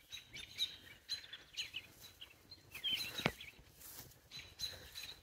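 Small songbirds chirping and singing, with short calls and trills coming every fraction of a second. There is one soft knock about three seconds in.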